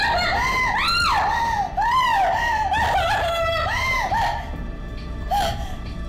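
A woman screaming in a rapid series of shrill, rising-and-falling shrieks, about two a second, breaking off about four and a half seconds in, with one short last cry soon after.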